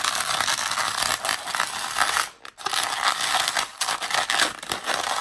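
Latex 160 modelling balloon rubbing and squeaking against itself and the hands as its petal bubbles are pulled up and twisted round. The sound breaks off briefly a little over two seconds in.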